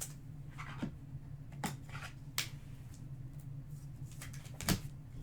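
Trading cards and pack wrappers being handled: about five short, sharp clicks and scrapes, the loudest near the end, over a steady low hum.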